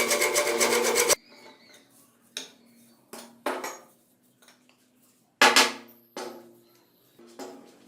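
Rapid rhythmic rasping, like filing, that stops abruptly about a second in. Then come five separate metallic clinks and knocks, a second or so apart, some ringing briefly, as metal tools or the axe head are handled.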